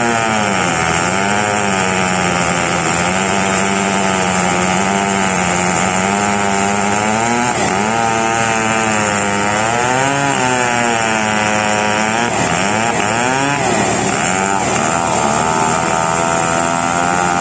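Large two-stroke chainsaw ripping lengthwise through a huge merbau log, running hard without a break. Its engine pitch rises and falls every couple of seconds as the bar loads up and frees in the cut.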